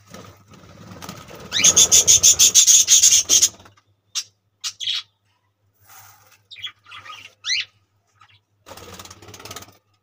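Budgerigars calling: a loud, rapid run of about a dozen harsh chirps, then several short rising chirps, with a short rustle near the end.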